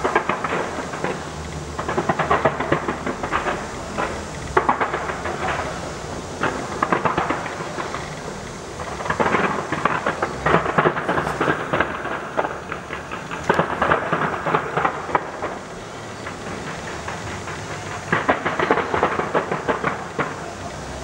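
Large fireworks display going off in rapid volleys: dense crackling and popping over a continuous rumble, swelling and easing in waves every few seconds.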